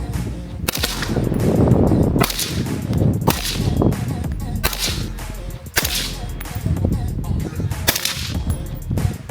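A suppressed 5.56 AR-15 rifle with a flow-through suppressor firing about six single shots, spaced roughly a second or so apart. Each report is a sharp crack followed by a short echo.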